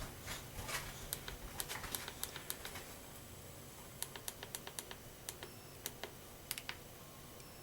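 Light, irregular clicking and tapping, like small plastic buttons being pressed or small parts being handled, in two clusters with a short pause between them.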